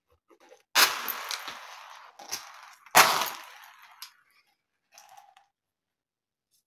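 Handfuls of small beads dropped onto a hard floor, each landing as a sudden clatter that tails off as the beads scatter and roll. It happens twice, about two seconds apart.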